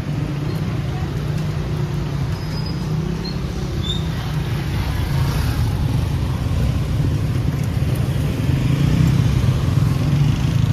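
Street traffic: motor vehicle engines running close by as a steady low rumble, growing a little louder in the second half.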